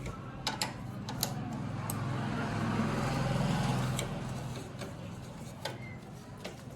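A motor running with a low hum, its noise swelling over a couple of seconds and then fading, with a few sharp clicks scattered through it.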